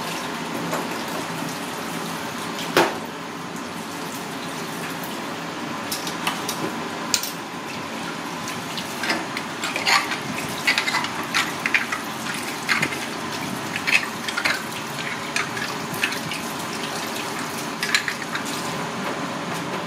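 Tap water running steadily into a sink, with a sharp click about three seconds in and many small clicks and knocks through the second half.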